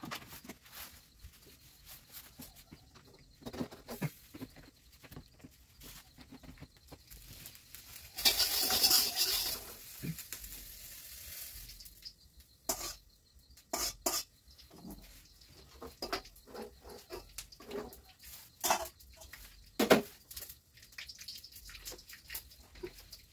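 Cooking clatter at a gas stove: scattered knocks and clinks of a wok, pots and utensils being handled. About eight seconds in, a loud hiss lasts a second or two.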